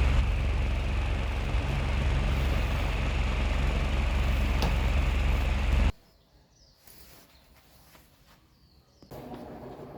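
Mini ceiling fan running, its airflow buffeting the microphone with a steady rumble and rush that cuts off abruptly about six seconds in. About three seconds later a quieter steady fan hum starts.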